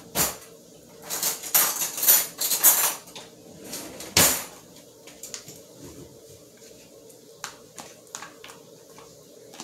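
Cutlery and dishes clattering, with a sharp knock at the start and another about four seconds in, then a utensil tapping and scraping lightly in a bowl as diced avocado, tomato and onion are stirred together.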